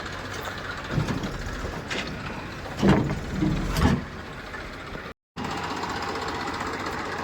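Diesel engine of heavy farm or construction machinery running steadily, with several heavy clunks over the first four seconds. The sound cuts out for a moment about five seconds in, then the engine sound picks up again.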